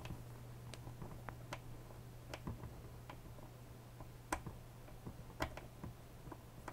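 Faint, irregular clicks and ticks of a screwdriver turning self-tapping screws out of a hot air station's plastic case, over a low steady hum.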